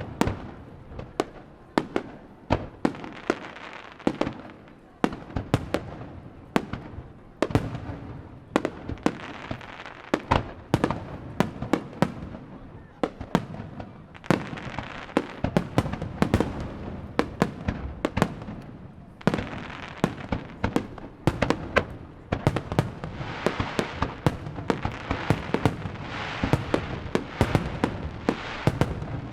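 Aerial fireworks bursting in quick succession, many sharp booms a second, overlapping with a dense crackle that thickens in the second half.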